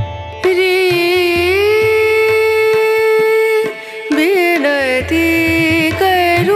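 Background music: a melody of long held notes that slide between pitches over a low steady beat, with a brief break a little past the middle.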